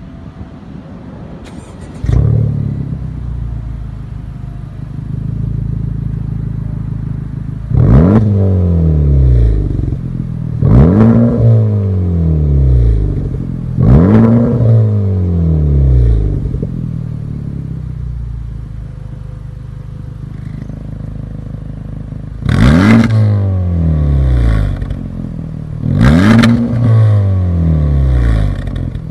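A Honda Civic Type R's turbocharged 2.0-litre four-cylinder runs through an aftermarket Fi Exhaust system with the car standing still. The engine note jumps louder about two seconds in and settles into an idle. It is then blipped five times, each rev rising sharply and falling back to idle: the first three come about three seconds apart, the last two after a longer idle.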